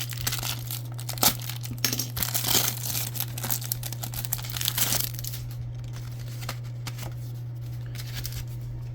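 Trading card pack wrapper being torn open and crinkled, in irregular crackles with a sharp snap about a second in, dying down after about five seconds, over a steady low electrical hum.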